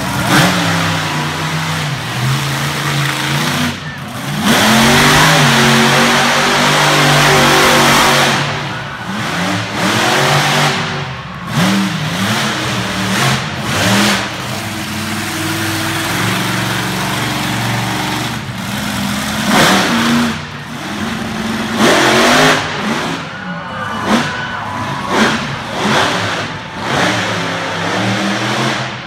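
Monster truck engine revving hard and dropping back again and again, with a long loud full-throttle stretch about five seconds in.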